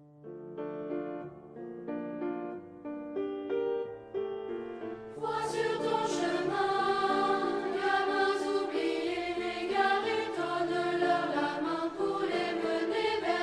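Choral music: held chords that change about once a second, swelling about five seconds in into a louder, fuller choir.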